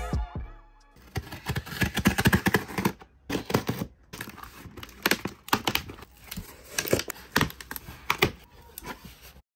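Packing tape being ripped off a cardboard shipping box and the flaps pulled open: a run of irregular tearing and crackling, with brief pauses, that cuts off suddenly near the end.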